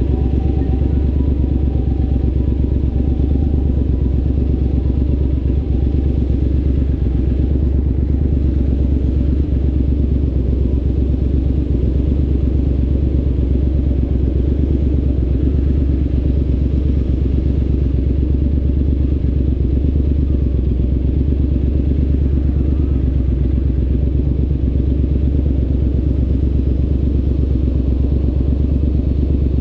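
Triumph Scrambler 900's parallel-twin engine idling steadily through an aftermarket ZARD exhaust, a deep, even, pulsing rumble.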